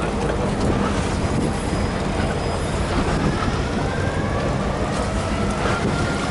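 Boat's outboard motor running steadily under a low rumble of wind and water noise; a faint whine climbs slowly in pitch through the second half.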